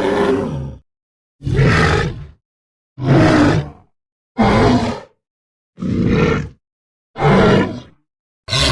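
Torosaurus dinosaur sound effects: a series of about seven short, deep, growling calls, each under a second long, spaced roughly every second and a half with silence between them.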